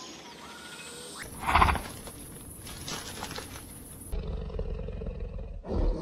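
Wild animal calls in short spliced clips, the loudest a brief rough roar about one and a half seconds in, followed by lower growling.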